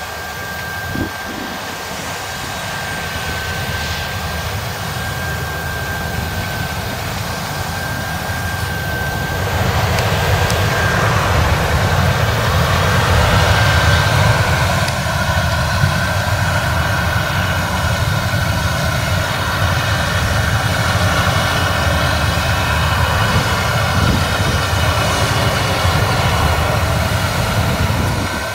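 Claas Lexion combine harvester running while threshing rapeseed: a steady low engine drone with a high, steady whine over it, growing louder about ten seconds in.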